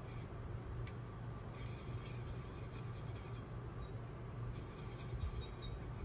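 Faint scratchy rubbing of a water brush working watercolour paint around a plastic palette, mixing the colour, in two spells of a second or two. A low steady hum sits underneath.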